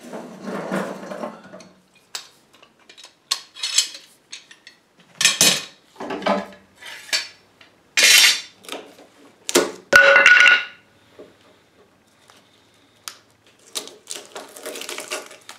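Metal bar clamps being handled and loosened on a cured epoxy glue-up of a wooden desk case: irregular metal clinks, knocks and scrapes, with one short squeak about ten seconds in. Near the end, blue painter's tape is peeled off the wood.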